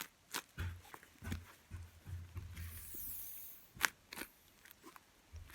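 A homemade duct-tape paper squishy stuffed with a plastic bag being squeezed and handled: scattered crinkles and crackles, with one sharper click near the middle.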